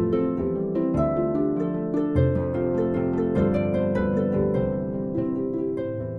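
Background music: a quick melody of plucked string notes, each note ringing briefly and dying away.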